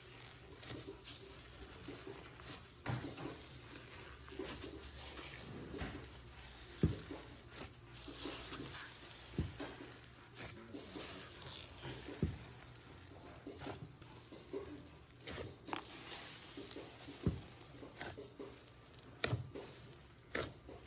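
White slime packed with small foam beads (floam) being pressed, poked and stretched by hand, giving an irregular run of sharp little clicks and crackles with soft squishing in between.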